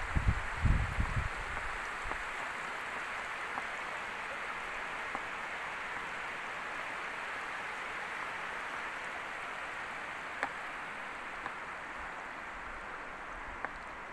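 Steady hiss of rushing water, from water spilling over a low weir. A few low bumps on the microphone in the first second and a half, and faint single clicks now and then.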